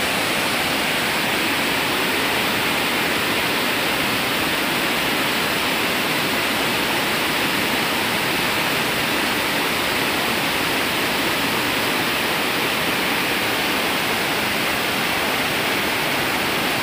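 Steady rush of water pouring down a concrete weir spillway into the river, an even roar that holds without change.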